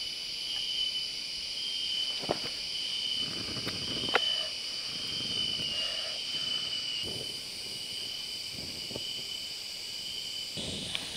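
Steady, high insect chorus droning, with a couple of sharp cracks and short rustles from sticks and branches being laid over a small campfire.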